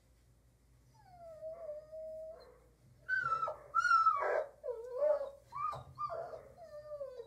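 A dog whining in a string of high, wavering calls: a softer one about a second in, then louder ones from about three seconds on, several of them sliding down in pitch.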